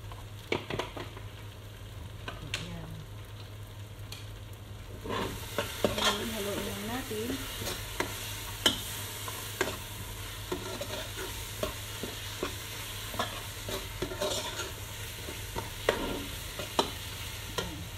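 Ground spices being stirred into a frying tomato-paste base in a pot, with a metal spoon scraping and knocking against the pot in irregular clicks. The sizzling of the frying paste grows louder about five seconds in.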